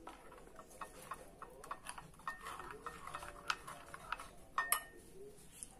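Metal spoon stirring thick banana-fritter batter in a ceramic bowl, with irregular clinks and taps of the spoon against the bowl, a few sharper ones near the end.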